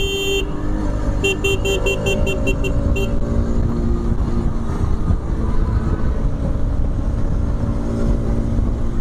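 Bajaj Pulsar RS 200 single-cylinder engine running at road speed, with strong wind noise on the microphone. Over the first few seconds a horn sounds in a quick run of short beeps.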